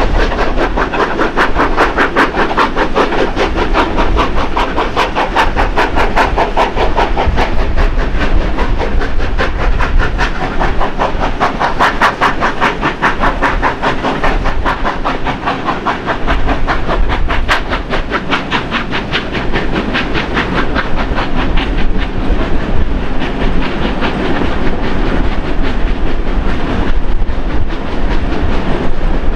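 Two steam locomotives, NSW 30 class 3016 and 36 class 3642, double-heading a train up the grade, heard from the carriages behind as a fast, steady run of exhaust beats over the rumble and clatter of the carriage wheels on the rails. The exhaust beats grow fainter in the last several seconds, leaving mostly the running of the train.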